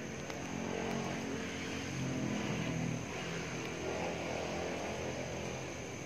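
An engine hums steadily, swelling about a second or two in and easing off after about three seconds.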